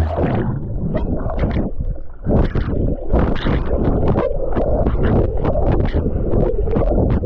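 Muffled underwater river sound: water rushing and bubbling, with many dull knocks and splashes as a person moves about and kicks below the surface.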